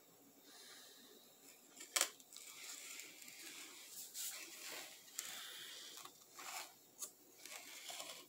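Close rustling and scraping of petals and leaves against the recording phone, with scattered clicks, the sharpest about two seconds in.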